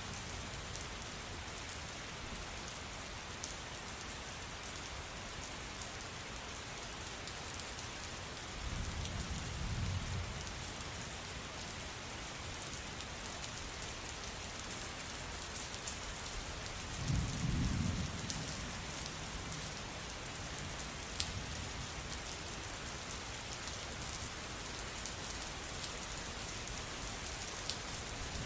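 Steady rain falling, a continuous hiss with occasional sharp drop ticks, broken twice by low rumbles of thunder, about a third and two-thirds of the way through.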